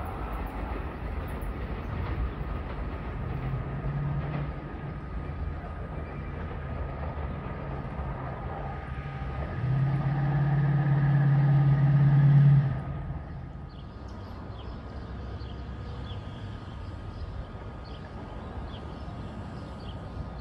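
Electric passenger train approaching on the Northeast Corridor: a steady rumble with a low hum that grows louder and peaks about two-thirds through, then cuts off abruptly. Quieter background with faint high chirps follows.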